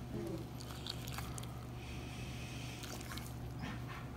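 Faint wet squishes and small clicks from a Bullmastiff's mouth as an abscess inside it is pressed and drained, over a steady low hum.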